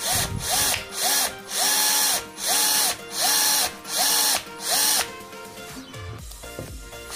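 Bosch GSR 120-LI cordless drill run in short trigger pulls, about eight in the first five seconds. With each pull the motor whine rises, holds briefly and falls. After repair it runs clean, free of the ugly noise it had before.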